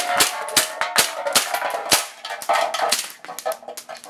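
A KJW M9 gas blowback airsoft pistol firing: a quick, irregular series of sharp metallic clicks and knocks with a short ringing tone, getting fainter toward the end. It is running on a nearly empty can of green gas that gives only vapour, no liquid, so the pressure is low.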